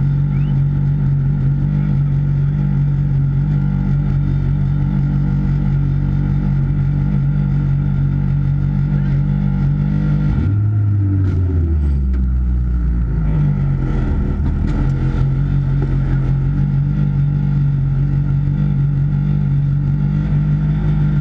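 Car engine idling steadily, heard from inside the car. About halfway through, the engine note drops lower for a few seconds, then settles back to the steady idle.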